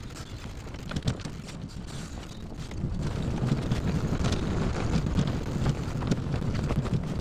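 Wind buffeting the microphone over the low rumble of a wheeled carrier rolling along the road, with small rattles and knocks. It gets louder about three seconds in.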